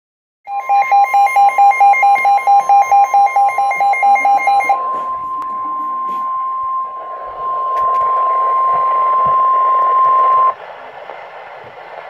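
Midland weather alert radio sounding its alarm in rapid, shrill beeps for about four seconds over the steady NOAA Weather Radio warning alarm tone, which signals that a warning is about to be read. The steady tone runs on alone and cuts off suddenly about ten and a half seconds in, leaving radio hiss.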